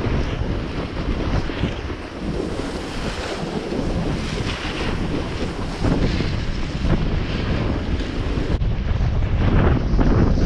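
Wind rushing over the microphone of a downhill skier, with the skis hissing and scraping on packed snow in repeated swells as they turn.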